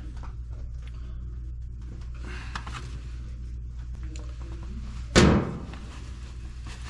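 A steady low hum with a few faint clicks, then one loud slam about five seconds in.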